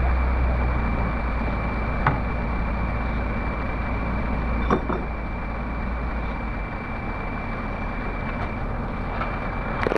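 Heavy diesel engine running steadily at idle, a low rumble that eases off about seven seconds in, with two short metallic knocks.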